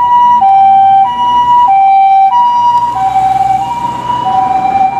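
Toy ambulance's electronic two-tone siren playing a hi-lo wail, a higher and a lower note alternating about every two-thirds of a second, growing a little softer near the end.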